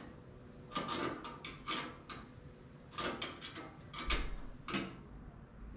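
Short metallic clicks and knocks from the bed rack's bars and bolts being handled and hand-tightened, coming in little clusters every second or so, with one heavier knock about four seconds in.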